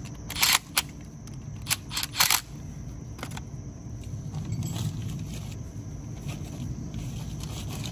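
A few short clinks and rattles of hand tools being handled in the first two and a half seconds, over a steady low background rumble.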